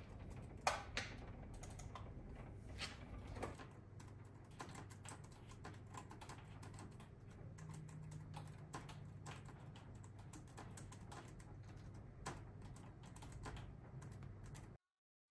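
Typing on a computer keyboard: a few separate key clicks at first, then a fast, continuous patter of keystrokes that cuts off suddenly near the end.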